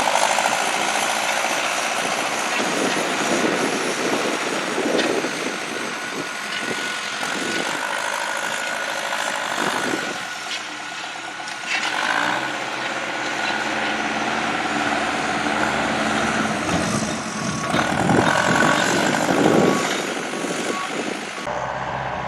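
Heavy earthmoving machinery running and working, with engine noise and scattered clanks, as topsoil is moved to build up and level ground. The sound changes abruptly near the end.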